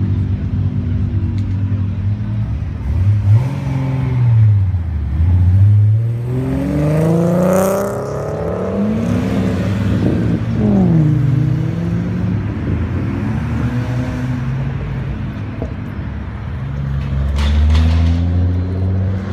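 Several car engines revving and accelerating past one after another. The engine pitch climbs and falls with each rev, loudest about four to eight seconds in.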